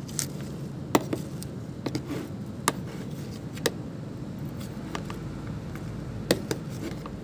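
Scattered sharp clicks and taps, about half a dozen, the loudest about a second in, over a steady low hum.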